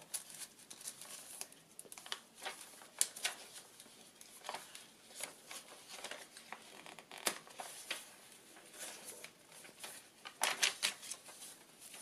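Paper rustling and crinkling as the pages and tucked-in cards of a handmade paper junk journal are handled, with a card slid out of a paper pocket and pages turned. The sounds are scattered light rustles and taps, with a busier burst of rustling about ten and a half seconds in as a page is turned over.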